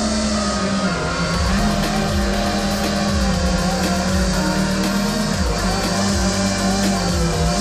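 5-inch FPV quadcopter's Transtec 2207 1850KV motors and Gemfan triblade props whining, the pitch dipping and rising with throttle as it flies low, mixed with background music with a steady beat.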